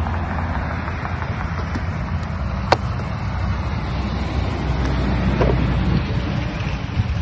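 Steady low rumble of wind on the microphone outdoors, with one sharp click about three seconds in as the plastic lid of the 5-gallon pail is pulled off.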